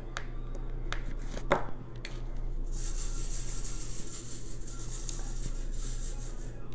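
Diamond-painting handwork: a few light clicks and taps of the drill pen and resin drills, then from about three seconds in a steady high rustling hiss lasting about four seconds, like small drills rubbing and rattling against plastic.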